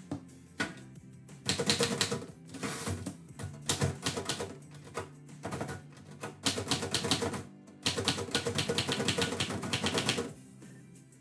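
Typewriter being typed on in quick runs of keystrokes, several bursts broken by short pauses.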